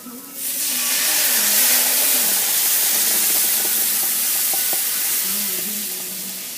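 Milk poured into a hot pan of fried mushrooms and onions, hissing and sizzling as it hits the pan. The hiss starts suddenly about half a second in and slowly dies down.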